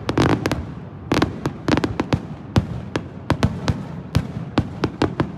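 Aerial fireworks going off: a rapid, irregular string of sharp bangs and cracks, about three or four a second.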